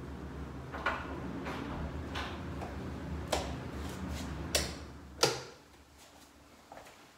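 A handful of sharp clicks and knocks from someone moving about, then a loud wall-switch click about five seconds in, right after which a steady low hum cuts off.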